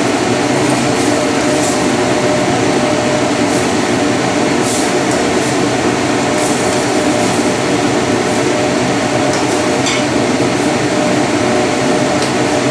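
Tomatoes and luncheon meat frying in a pan on a gas hob under a loud, steady rushing noise with a faint hum. A metal ladle stirs the food, scraping and clicking against the pan a few times.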